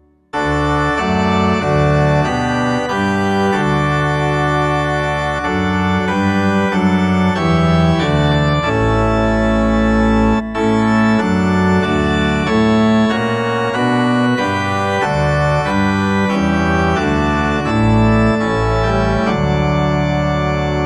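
Organ playing a hymn verse in sustained chords that change every second or so. It comes in just after a short break between verses.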